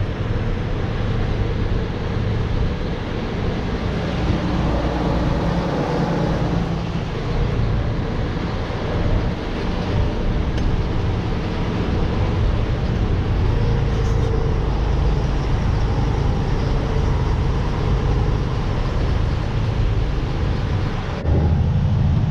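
Truck running at low speed, heard from inside the cab: a steady engine hum with road and cab noise. About 21 seconds in, the sound changes abruptly to a louder, deeper hum.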